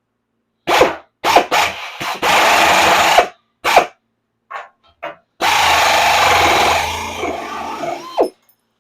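Power double-cut shear cutting 16-gauge steel sheet: a few short bursts as the trigger is squeezed, then a longer cut of about three seconds, each one stopping abruptly.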